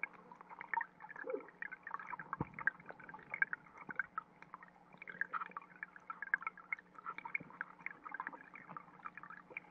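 Stream water trickling, heard underwater: a dense, irregular patter of faint ticks and pops, with a low steady hum beneath.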